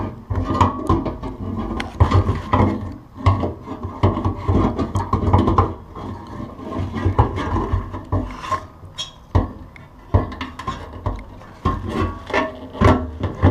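Fuel pump and sending-unit assembly being fitted into the opening of a metal gas tank: irregular scraping and rubbing, with clicks and knocks of the sender plate and metal fuel lines against the tank.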